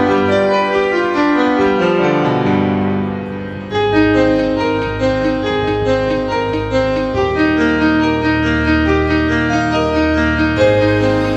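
Background piano music: a steady run of notes, with a descending passage and a brief dip in loudness a few seconds in.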